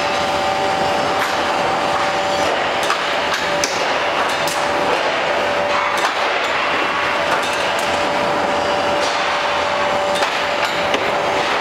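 CNC angle steel punching line running: a loud, steady machine noise with a steady whine that cuts in and out, and several sharp metallic knocks at irregular moments.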